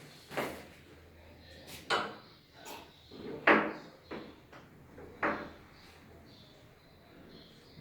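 A person gulping down a drink in large swallows, about six gulps spaced roughly a second apart, the loudest near the middle. It is the fast drinking of liquid that fills the stomach before vamana, the induced therapeutic vomiting.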